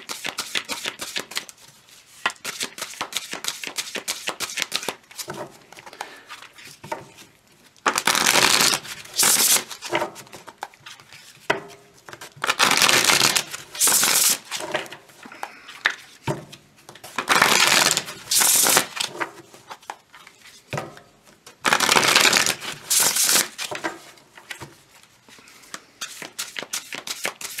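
A deck of tarot cards being shuffled by hand: a steady patter of card clicks, broken by four louder rushes of shuffling, each a second or two long.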